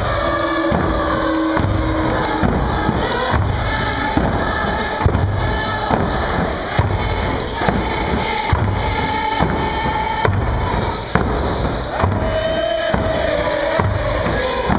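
Nisga'a hand drums beaten in a steady, even rhythm of about one stroke a second, echoing in the hall, with a group singing a traditional dance song over them.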